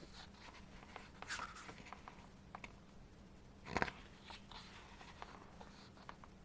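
Paper handling as the pages of a photo book are turned: scattered soft rustles and small clicks, with one louder page flip a little under four seconds in.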